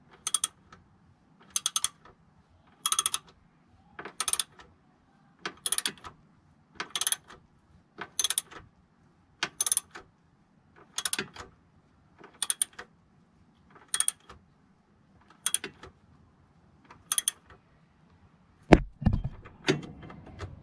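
Ratchet wrench being worked in regular strokes, a short run of clicks about every one and a half seconds, then a couple of heavier metallic knocks near the end.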